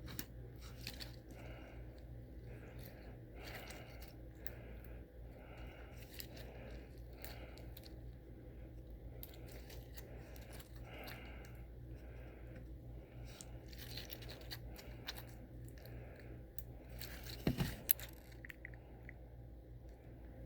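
Slime with small pieces mixed in being squeezed and pulled by hand, giving soft irregular crackles and crunches, with a louder crunch about three-quarters of the way through. A fan hums steadily underneath.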